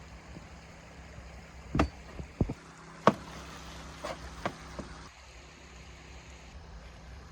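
A handful of separate sharp knocks and clicks, spread over a few seconds, over a steady low background rumble.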